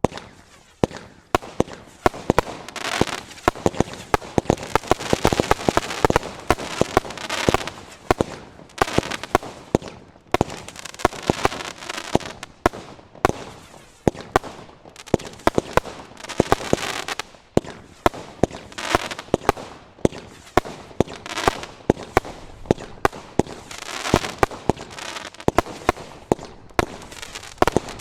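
Tranquility Base 54-shot fireworks cake firing: a rapid, continuous run of sharp bangs, several a second, over crackle.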